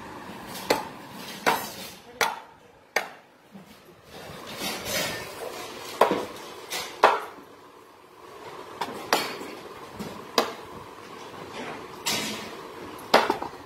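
A heavy curved chopping knife striking raw green mangoes on a wooden block, cutting them into pieces. It makes about ten sharp knocks, roughly a second apart and irregular.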